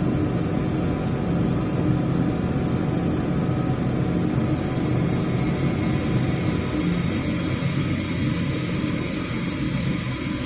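Miura steam boiler running: a steady, unbroken low roar with a faint hum.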